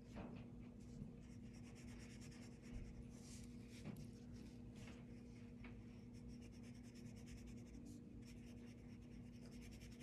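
Faint scratching of a fine watercolour brush stroking paint onto paper, coming in several runs of quick strokes, over a faint steady hum.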